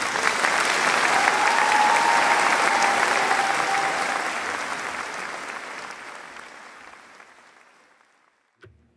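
Audience applauding in a concert hall, swelling at first and then fading away over several seconds.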